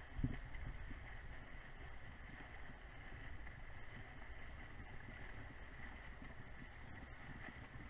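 Faint, steady muffled water noise heard through an underwater camera housing as a swimmer swims freestyle close by, with a small bump just after the start.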